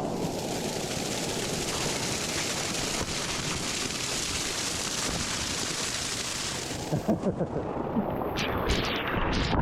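Rushing water of a canyon waterfall, a steady loud hiss that falls away sharply about seven seconds in, followed by a few dull thumps and knocks.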